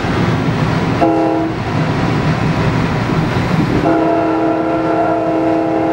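Nathan K5LA multi-chime train horn heard from the cab: a short blast about a second in, then a long blast starting about four seconds in, sounded for a road grade crossing. Under it, the steady rumble of the train running on the rails.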